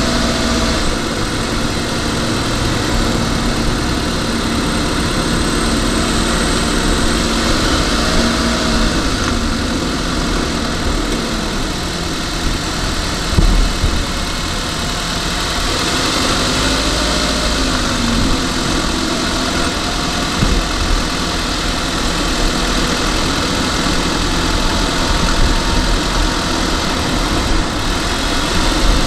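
Car engine and road noise heard from inside the cabin while driving at low town speed; the engine note rises and falls a few times as the car slows and pulls away, with a brief knock about halfway through.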